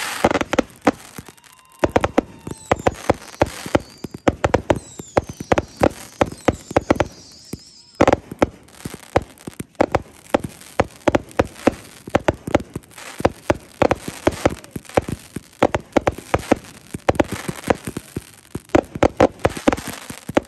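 Aerial fireworks bursting overhead in quick succession: a dense run of sharp bangs and crackling, with a few falling whistles in the first half and a short lull about a second in.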